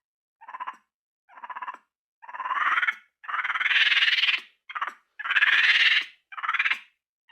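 Compsognathus dinosaur sound effect: seven separate raspy, chirping calls with clean silence between them. The middle calls are longer and louder.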